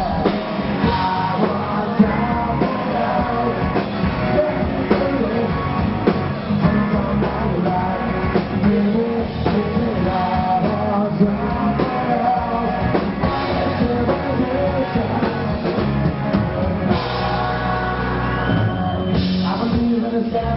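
Rock song with singing over a drum kit and guitar.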